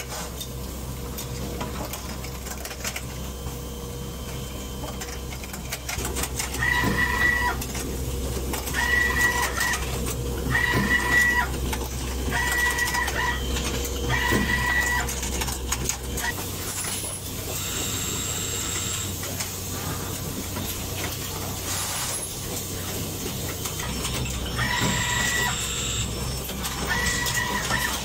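Automated motor assembly and test machinery running: a steady hum with scattered mechanical clicks and clatter. A beep about a second long repeats every couple of seconds, first for a stretch in the middle and again near the end.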